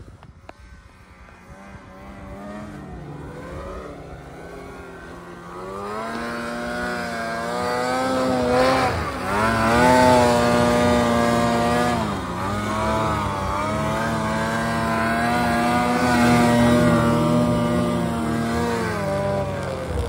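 Snowmobile engine revving hard as the sled carves through deep powder, its pitch rising and falling with the throttle. It grows much louder over the first half as the sled comes close, stays loud, then the revs drop shortly before the end.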